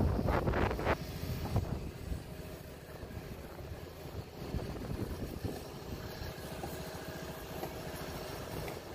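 Wind buffets the microphone loudly for about the first second. A steady low engine rumble then runs on underneath.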